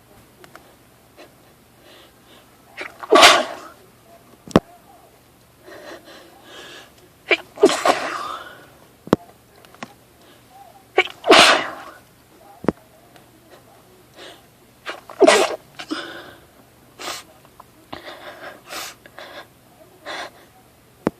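A woman sneezing over and over in a nonstop fit: four loud sneezes about four seconds apart, with quieter sneezes and breaths between them, from a strongly tickling, irritated nose.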